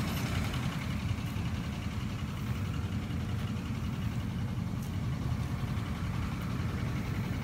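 Vehicle engine idling, a steady low rumble with no change in pitch or level.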